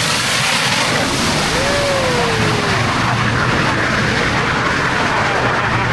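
Big Boy No. 4014 steam train passing close by: a loud, steady rushing rumble of the train rolling past, with a brief falling whine about two seconds in.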